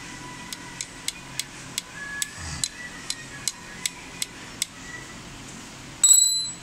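Light, regular metallic ticks, about two to three a second, from the gear mechanism of a Newlong portable bag-closing sewing machine being worked by hand. Near the end comes a short, loud, high-pitched metallic ring.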